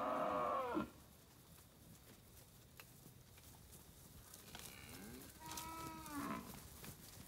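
Droughtmaster heifers mooing: a loud call that breaks off less than a second in, then a second, quieter call about five and a half seconds in whose pitch rises and falls.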